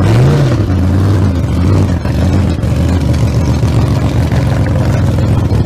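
Loud engine running, rising and falling in pitch once just after the start, then settling into a steady rumble.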